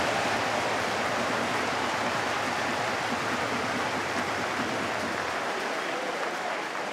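Football stadium crowd: a dense, steady noise of many voices from the stands, easing slightly near the end.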